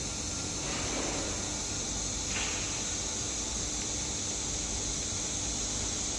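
Steady hiss from a robotic laser welding machine, with a faint steady hum beneath it and a couple of faint brief swishes, about one and two and a half seconds in.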